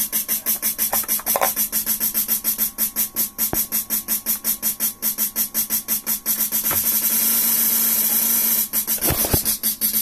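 Fast, evenly repeating electronic beat, about five pulses a second, with a steady low hum underneath. Around two seconds before the end the pulses blur into one continuous buzz, then the beat resumes.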